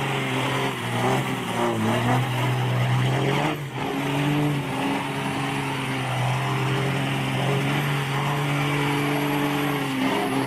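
A vehicle engine running steadily, its pitch shifting slightly a few times.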